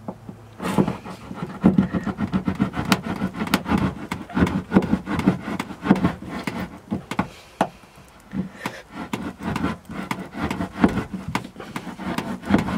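Masking tape being picked and peeled off cured epoxy with a knife blade: a run of irregular crackling, tearing and scraping, with a short lull about two-thirds of the way through. The tape is stuck fast in the hardened epoxy.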